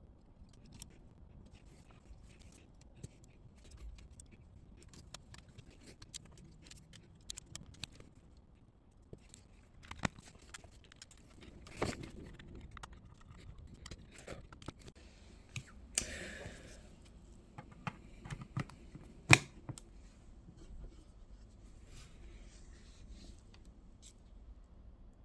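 Small handling noises from taking apart and refitting a camera monitor's screen and casing: scattered light clicks and taps of small parts and tools. There is a short scraping rustle about two-thirds of the way through and a sharp click soon after.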